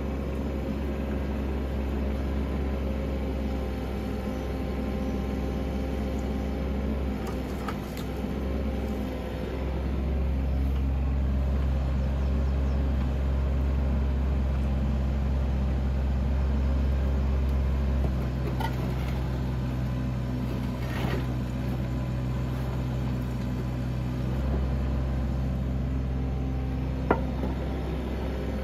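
Bobcat 319 mini excavator's diesel engine running steadily, growing louder for stretches as the hydraulics swing and work the log grapple. A few short knocks sound as logs are handled, the sharpest near the end.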